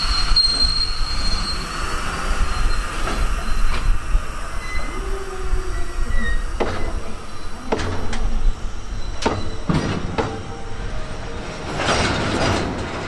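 Freight train rolling past. A high-pitched wheel squeal runs for the first couple of seconds, and irregular sharp clanks and knocks from the wheels over the rail joints come through the second half.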